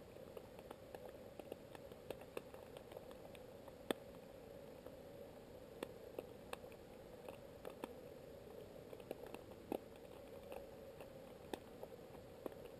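Faint underwater ambience: scattered sharp clicks and crackles at irregular intervals over a steady low hum.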